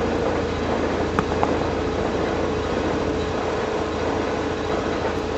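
Steady machine drone with a constant mid-pitched hum and a low hum under it, holding an even level, with two light clicks a little over a second in.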